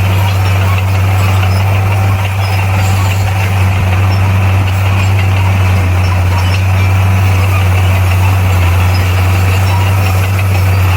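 Bulldozer's diesel engine running steadily: a loud, even drone that holds the same pitch throughout.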